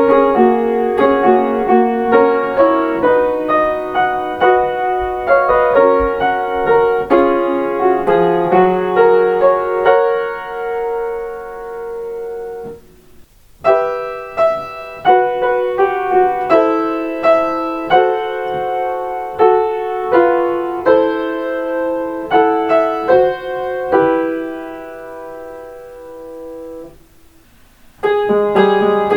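Solo piano playing Kintetsu limited express onboard chime melodies. Two short tunes of about thirteen seconds each are separated by a brief pause, and a third starts near the end.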